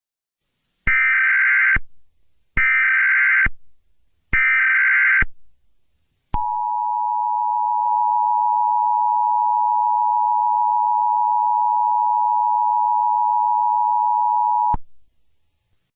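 Emergency Alert System tones: three SAME header data bursts, each a harsh warbling digital screech just under a second long, then from about six seconds in the steady two-tone attention signal, held for about eight seconds before cutting off sharply. The sequence announces the start of a new alert message.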